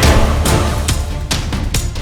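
Background music with a heavy bass and sharp, regular drum hits.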